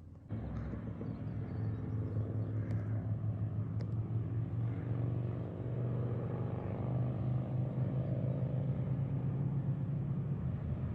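An engine running steadily, its drone starting abruptly and edging slightly higher in pitch about halfway through.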